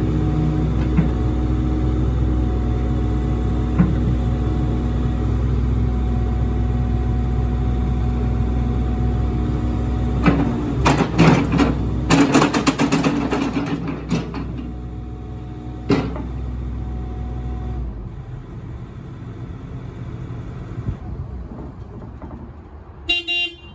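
Kobelco SK75SR-3E 7.5-tonne excavator's diesel engine running steadily, with a run of sharp metallic clanks and knocks about halfway through as the arm and bucket move. The engine sound drops away about eighteen seconds in.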